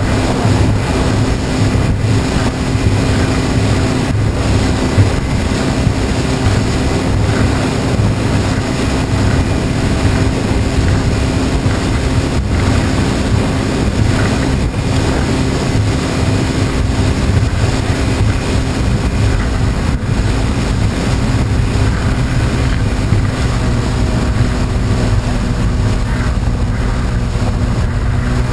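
Outboard motor running steadily at cruising speed, with wind buffeting the microphone and water rushing past the hull.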